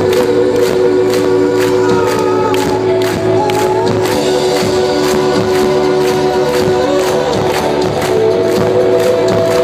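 Rock band playing live: a steady drum beat about two beats a second under sustained chords, with a voice singing over it at times and crowd noise.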